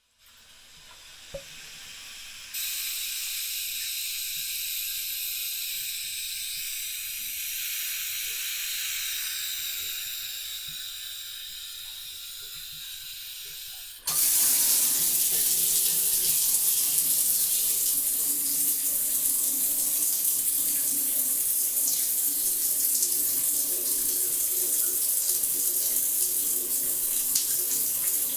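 Water running from a bathtub tap, an even hiss that grows louder in two steps, the second about halfway through, where it becomes a fuller, louder rush that holds steady.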